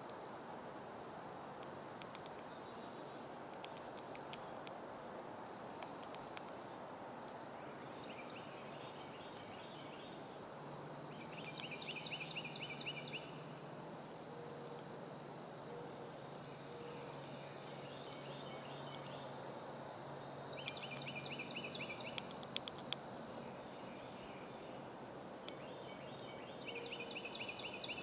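Outdoor insect chorus: a steady high-pitched shrill drone, joined about a third of the way in, again about three quarters in and near the end by another insect's rapid pulsed bursts lasting a second or two each.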